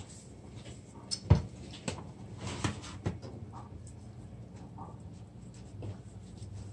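Hands rubbing seasoning into a whole raw fish: soft wet handling sounds with a few knocks, the sharpest a little over a second in.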